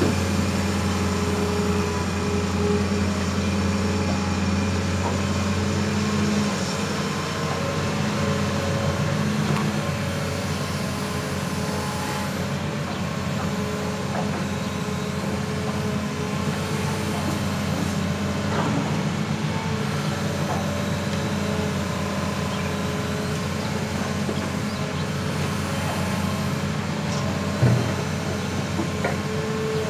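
Hitachi Zaxis 200 crawler excavator's diesel engine running steadily under load as the machine digs and swings its bucket, with one sharp knock near the end.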